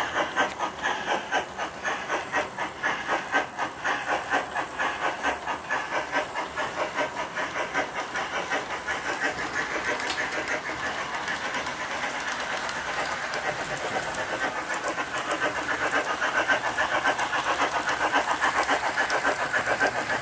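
Model steam locomotive and train running on three-rail O-gauge track: a steady, rhythmic clickety-clack of wheels and motor, the beat growing a little faster and louder in the second half.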